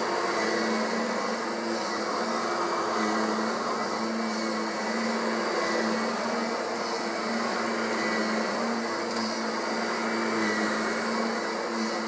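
Kirby Centria upright vacuum cleaner running steadily while pushed back and forth over carpet: a constant motor hum and rush of air whose hum swells and fades a little every second or two, running smoothly.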